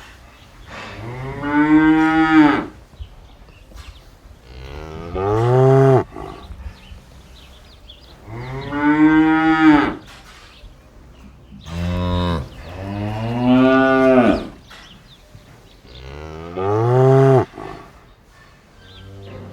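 A cow mooing repeatedly: about six long, loud moos a few seconds apart, each rising and then falling in pitch.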